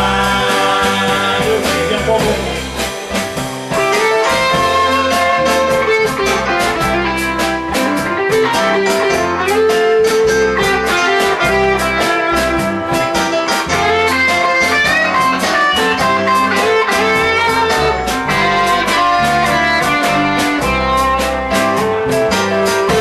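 Music: a blues-style piece led by guitar over a steady beat, growing a little fuller about four seconds in.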